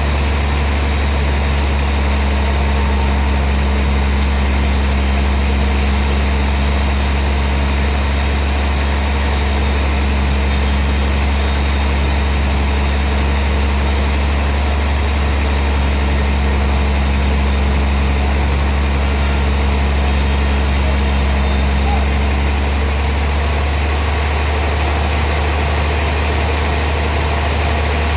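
Sawmill machinery running steadily with a loud, low, constant hum.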